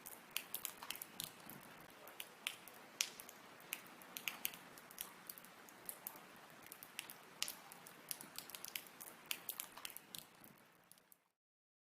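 Water droplets dripping: irregular, quick little drips several times a second over a faint watery hiss. They fade out and stop dead about eleven seconds in.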